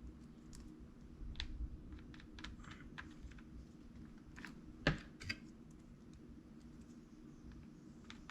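Light, scattered clicks and taps of small plastic RC-car parts being handled, with a sharper click about five seconds in, over a faint steady low hum.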